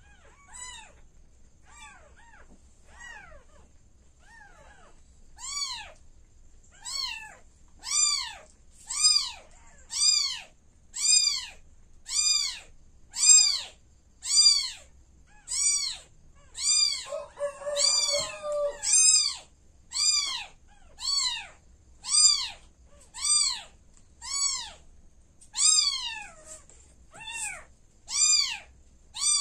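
Week-old kittens mewing: high, repeated cries, each rising then falling in pitch, about one a second. They are faint at first and grow loud about five seconds in. A lower, held cry briefly overlaps near the middle.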